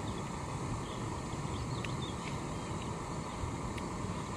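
A person eating from a metal camping bowl: a few faint clicks and ticks of a plastic spork against the bowl over a steady background hiss.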